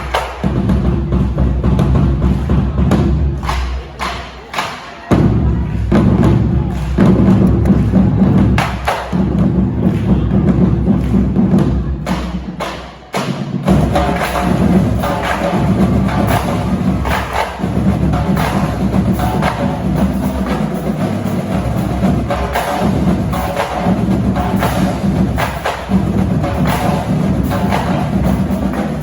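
Marching drumline playing a fast percussion cadence: many sharp, rapid drum strikes with bass drum hits underneath. The playing drops off briefly about four seconds in and again about thirteen seconds in.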